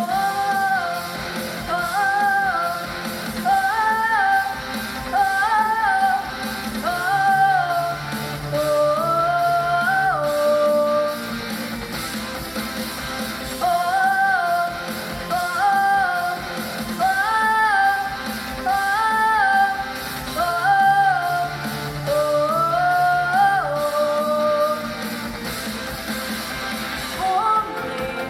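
A pop song: a high lead melody in short repeated phrases of held, stepping notes over a backing track with a bass line.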